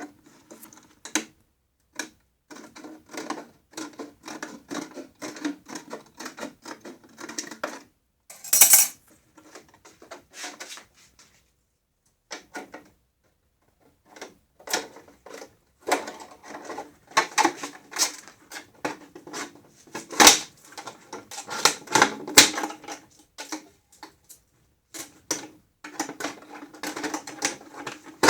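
Irregular clicking, tapping and rattling of hard plastic and small parts being handled, with a pause about halfway through.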